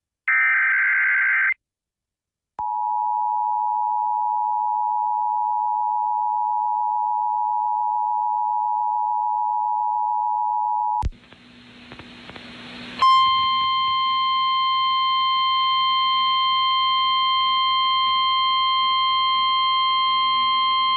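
Emergency Alert System tones for a tornado warning. It opens with a short warbling SAME data burst, then after a second's pause the EAS two-tone attention signal (853 and 960 Hz) holds steady for about eight seconds and cuts off. A hiss of static rises, then about two seconds later a steady 1050 Hz NOAA Weather Radio warning alarm tone sounds over a low hum.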